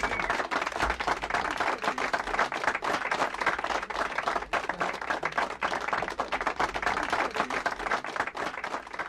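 Crowd applause: many hands clapping densely and steadily.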